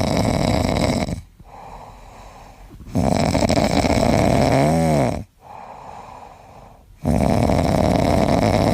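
A pet snoring loudly: three long snores about three and a half seconds apart, with quieter breaths between them. The middle snore ends in a brief wavering whistle.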